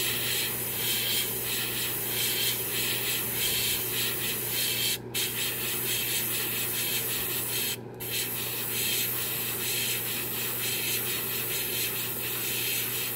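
Airbrush spraying Alclad II polished-aluminium lacquer onto a gloss-black primed spoon: a steady hiss of air and paint, cut off briefly twice as the trigger is let go, over a steady low hum.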